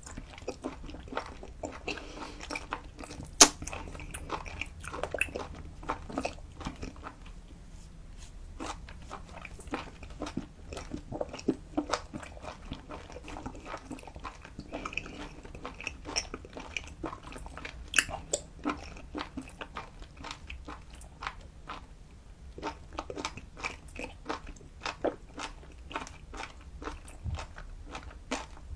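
Close-miked chewing of raw octopus: a steady run of wet, sticky mouth clicks and smacks, with one sharp louder click about three and a half seconds in.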